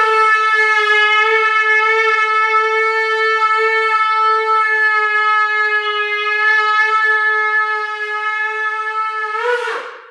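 Shofar sounding the tekiah gedolah, the 'great' extended blast: one long unbroken note held on a steady pitch for about ten seconds, wavering briefly just before it stops.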